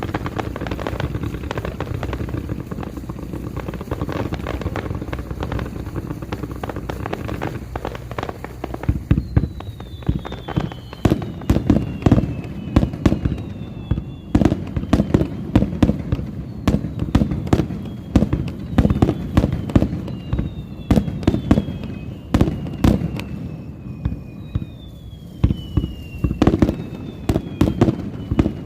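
Fireworks finale: a dense, rumbling crackle for the first several seconds, then a rapid run of sharp bangs from about nine seconds in, with repeated whistles falling in pitch between them.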